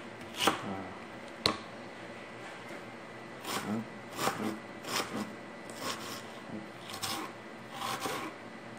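Knife slicing an onion on a cutting board: a sharp knock about a second and a half in, then short cutting strokes at roughly two a second through the second half.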